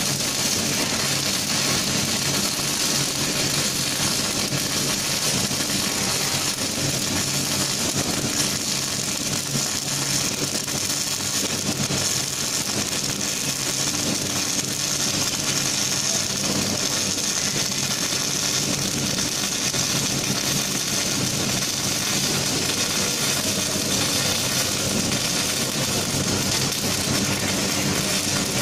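Robotic MIG welding arc running continuously, a steady dense crackle and sizzle with spatter, over a steady low hum.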